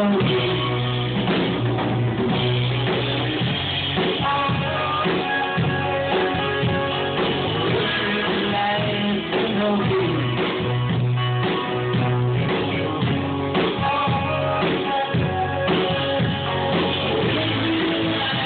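Live band playing a rock song, with electric guitar and a drum kit keeping a steady beat.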